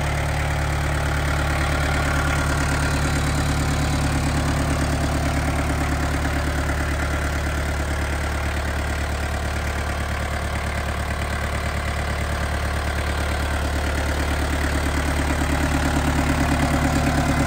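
Yanmar FX32D compact tractor's four-cylinder diesel engine idling steadily, with an even low pulsing beat; it grows a little louder near the end.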